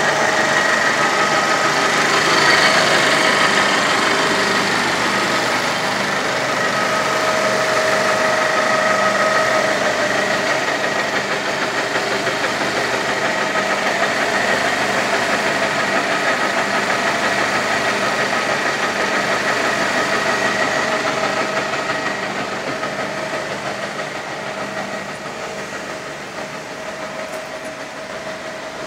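Skoda SD160 heavy-duty lathe running, turning a workpiece: a steady mechanical drone with several held whining tones, easing off somewhat over the last several seconds.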